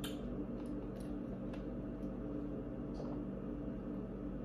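Quiet room tone with a steady low hum, broken by a few faint clicks and the soft sounds of someone drinking from a plastic cup.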